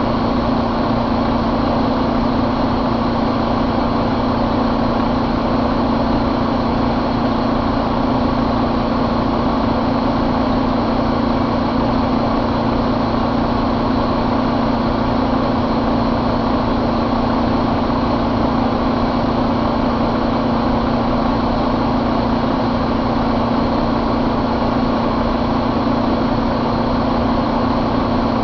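2019 Volvo D11 inline-six diesel truck engine idling steadily, heard up close at the open engine bay, with no change in speed.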